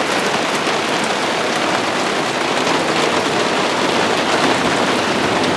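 Heavy rain in a steady downpour, an even hiss of rain pelting surfaces close to the microphone.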